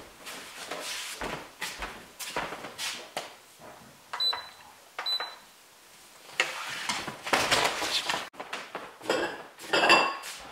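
Kitchen handling sounds: irregular knocks and scrapes of a wooden spoon stirring soup in the stainless steel inner pot of an electric pressure cooker, with two short high electronic beeps about four and five seconds in. Bowls clatter near the end.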